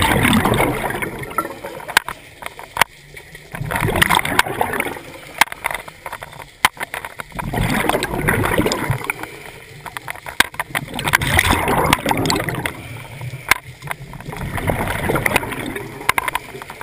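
Scuba diver's regulator venting exhaled bubbles, heard underwater: five rushing, gurgling swells about every three and a half seconds, one per breath, with scattered sharp clicks between them.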